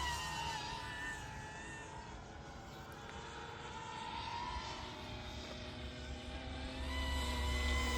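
Radio-controlled FMS P-51D Mustang model flying, its motor and propeller mixed with the engine sound of its onboard G.T. Power sound system. The pitch drops slightly as it passes in the first second, the sound fades as it flies off, and it grows louder again near the end as it comes back.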